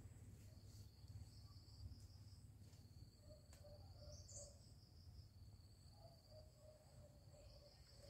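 Quiet outdoor ambience of insects, likely crickets, trilling steadily in a high, continuous pulsing chirr, over a faint low rumble with a few soft clicks. A single short bird chirp comes about four seconds in.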